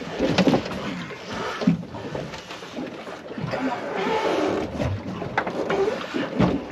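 A man grunting and straining in short, uneven efforts as he hauls a large shark up over a boat's stern by rope, with scattered knocks against the hull.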